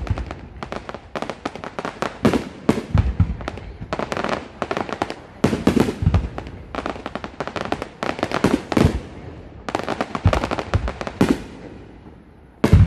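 Aerial fireworks display: rapid volleys of sharp bangs and crackling from bursting shells, coming in dense clusters with short lulls. The firing thins out near the end, then a loud new volley starts.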